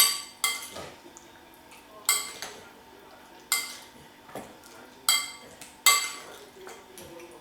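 A spoon clinking against a mixing bowl while chicken pieces are stirred through a marinade to coat them: about six sharp, ringing clinks at irregular intervals.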